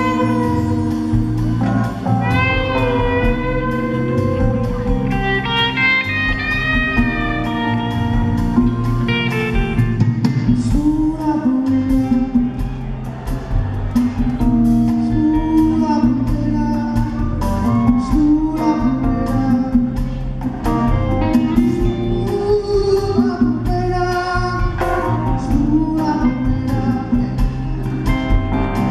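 Live band playing a slow soul groove on keyboards and organ, with a singing voice carrying a wavering melody in the first ten seconds and steady ticking percussion from about ten seconds in.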